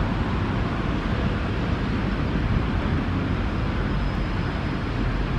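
Steady outdoor city noise: a constant low rumble of distant traffic, with a faint thin high whine for about a second past the three-second mark.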